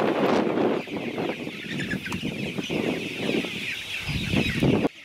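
A flock of brown chickens clucking and calling together in a dense, continuous chatter; the heavier lower part of the sound drops away suddenly near the end.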